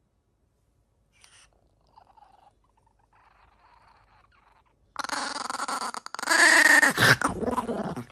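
A dog growling in two stretches, starting about five seconds in after near silence.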